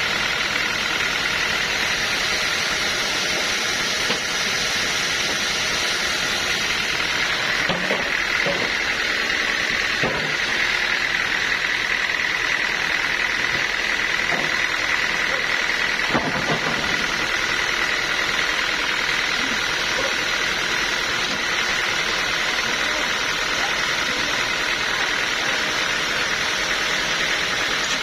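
Sawmill machinery running steadily, a mechanical noise with a constant high whine and a few faint knocks.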